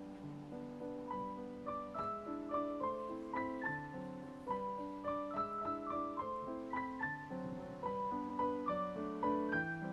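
Background piano music: a melody of single notes over lower held notes.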